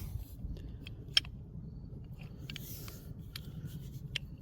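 A few light metal clicks and knocks from old steel pipe wrenches being handled, the loudest about a second in, with soft rustling between them over a faint steady hum.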